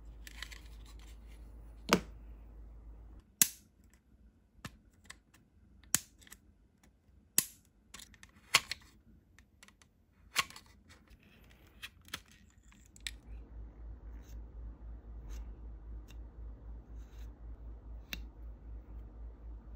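Chisel-bladed hobby knife cutting into a plastic model-kit body: half a dozen sharp snaps over the first ten seconds, each as the blade bites through the plastic. After that, only a faint steady low hum.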